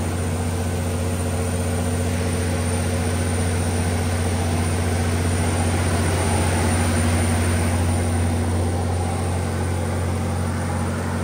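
Generac SD0600 diesel generator set's Daewoo P222LE V12 diesel engine running steadily, a constant deep drone with no change in speed.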